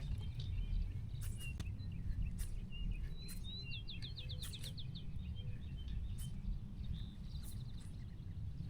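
Songbirds calling: scattered short chirps, and a rapid trill of about ten notes a little under halfway through, over a steady low rumble.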